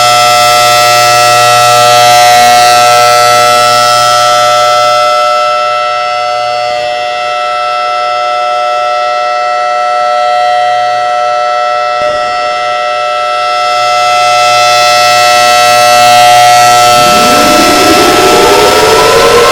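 Federal Signal Thunderbolt 1003 siren sounding its steady alert signal: a loud, held chord of several tones that swells and fades slowly as the rotating horn sweeps past. Near the end a rising tone begins winding up.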